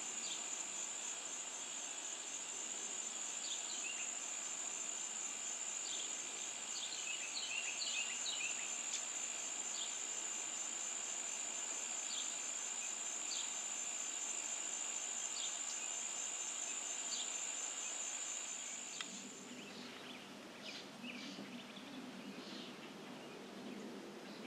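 A high, steady insect trill, with short scattered bird chirps over it. The trill cuts off about three quarters of the way through, and the bird chirps carry on over a faint low rumble.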